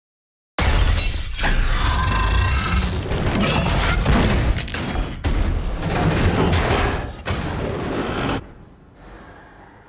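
A sudden, loud din of crashing and smashing, with many hard impacts packed together, starting out of dead silence. It lasts about eight seconds and then cuts off abruptly to a faint tail.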